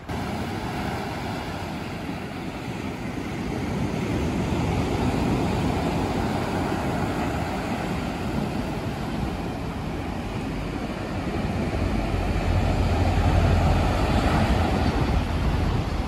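Sea surf breaking and washing up a sandy beach, a steady rush of waves that swells louder twice, the second time with a deep rumble.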